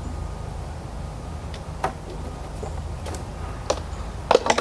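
A few light, sharp clicks and taps from handling small parts, bunched into a quick cluster near the end, over a steady low rumble.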